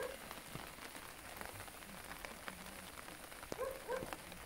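Light rain pattering on umbrellas: an even hiss of rain with many scattered ticks of drops. Two brief pitched sounds near the end stand out above the rain.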